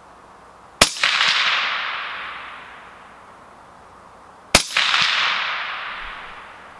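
Two rifle shots about four seconds apart from a suppressed AR-15-pattern rifle with an 18-inch .223 Wylde barrel. Each shot is a sharp crack followed by a long echo off the range that fades over about two seconds.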